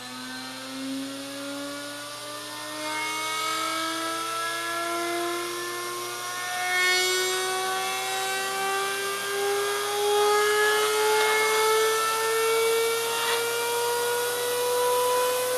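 Makita 5007NB circular saw's electric motor, gear reduction removed and powered straight to the brushes, spinning up with no load: a steady whine climbing slowly and evenly in pitch as it accelerates from about 12,000 toward 30,000 RPM.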